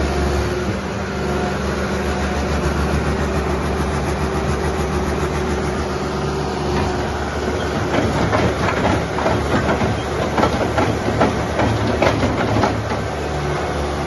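Bobcat S570 skid-steer loader's diesel engine running steadily under work, with repeated clanks and knocks from the loader and grapple handling hardened fertilizer, coming thick and fast in the second half.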